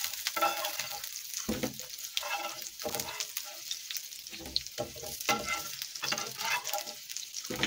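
Chicken pieces sizzling in oil in a nonstick frying pan, with a slotted spatula scraping across the pan every second or so as the fried pieces are lifted out.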